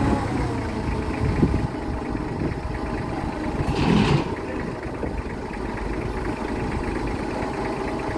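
TCM forklift engine idling steadily, with a brief louder rush of noise about four seconds in.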